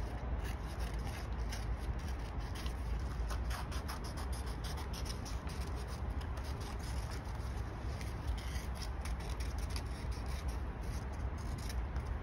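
Scissors cutting through black paper: a steady run of small snips and paper rustling.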